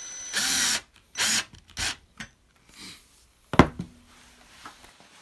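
Power screwdriver driving number 8 screws through an aluminium frame bar into pre-drilled holes, in three short bursts in the first two seconds. A sharp knock follows about halfway through and is the loudest sound.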